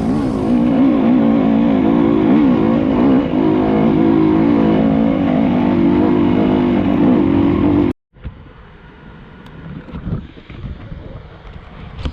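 Enduro motorcycle engine running under load, its pitch wavering up and down with the throttle. About eight seconds in it cuts off abruptly to a much quieter stretch with scattered knocks.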